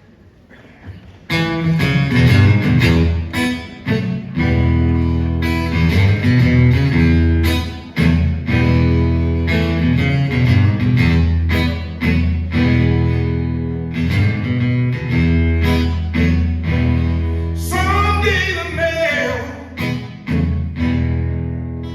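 Live acoustic blues: guitar picking an introduction over sustained low bass notes, starting about a second in, with a voice starting to sing near the end.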